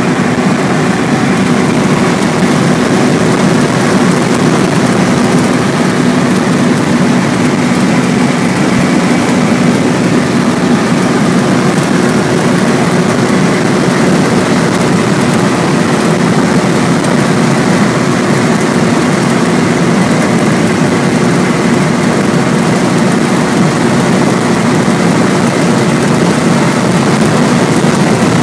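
Vintage car cruising at steady highway speed: a constant engine drone with wind and road noise, unchanging throughout.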